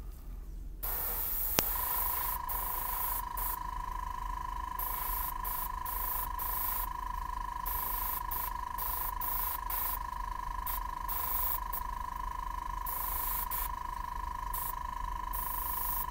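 Airbrush spraying ink in short bursts, its air hissing on and off as the trigger is worked; the airbrush is clogging a little. A click about a second and a half in, then a steady high tone that holds to the end.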